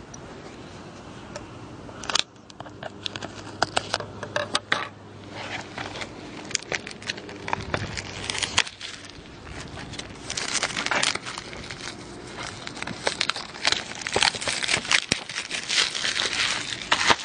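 Crinkling and crackling of plastic wrapping being torn and peeled off a DVD box set, with scattered clicks from handling the case; the crinkling gets busier from about ten seconds in.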